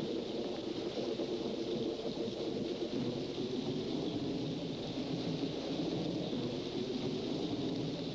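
Steady rushing, rumbling noise with no clear tones or beats.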